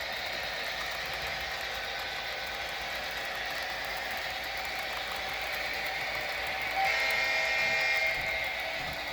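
Diesel locomotive sounds from the Proto-Sound 3.0 sound system of an MTH HO-scale GP38-2 model, played through its small speaker: a steady engine sound with no low bass. Near the end a horn blast of a little over a second rings out.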